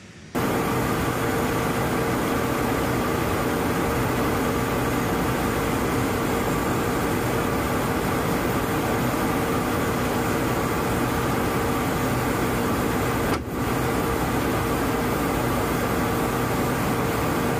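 Steady in-flight drone heard from a refuelling tanker aircraft during aerial refuelling: engine and airflow noise with a few steady tones. It starts suddenly just after the start and dips briefly about thirteen seconds in.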